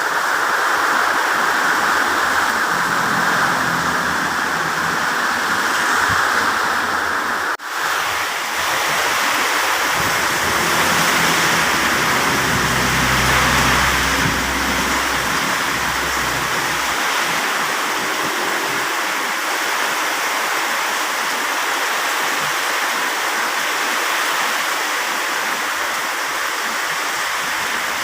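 Heavy rain pouring down, a loud steady rushing hiss. It breaks off for an instant about seven and a half seconds in and resumes, with a low rumble joining for a few seconds around the middle.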